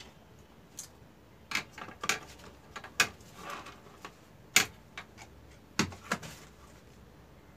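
Plastic clicks and knocks from handling a Xiaomi Mi Router 3C: its hinged plastic antennas are swung upright and the router is set down on the table. There are about seven separate sharp clicks, the loudest about three and four and a half seconds in.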